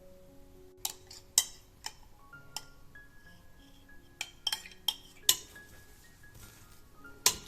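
Kitchen utensils clinking and knocking against dishware in about ten sharp, irregular strikes, over quiet background music.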